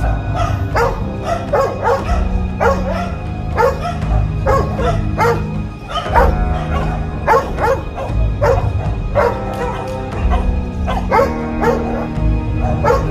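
Several dogs barking and yelping in short, repeated calls, about two a second, over background music.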